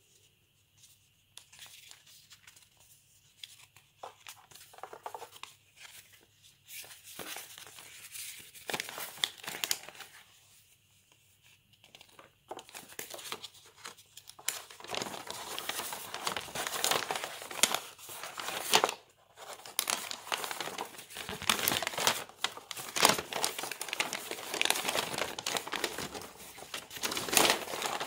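Folded paper instruction sheet rustling and crinkling as it is unfolded and handled, in short irregular rustles that become louder and almost continuous about halfway through.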